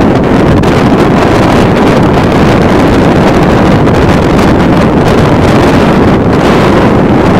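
Strong wind buffeting the microphone: a loud, steady roar with no distinct pitch.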